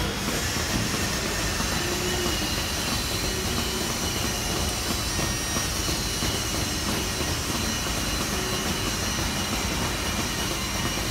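Steady machinery noise: a constant rumble and hiss with a few faint high whines running through it, unchanging throughout.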